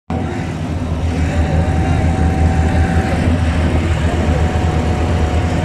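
Loud, steady low rumble of a moving vehicle.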